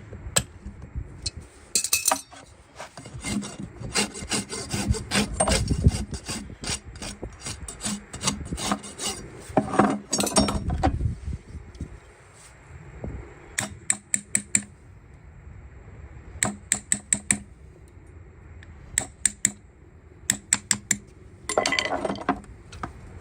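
A farrier's rasp filing a horse's hoof, in short runs of quick scraping strokes with pauses between them.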